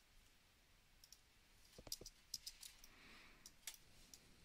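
Faint, scattered clicks of a computer mouse and keyboard, about a dozen, starting about a second in.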